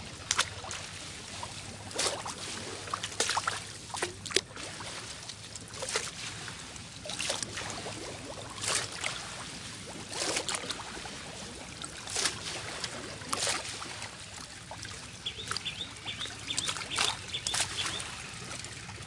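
Muddy canal water splashing and sloshing as someone moves through it, in irregular splashes every second or so. Near the end comes a quick run of short high chirps.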